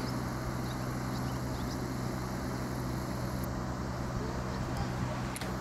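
A steady low hum with a few fixed pitches under an even background hiss.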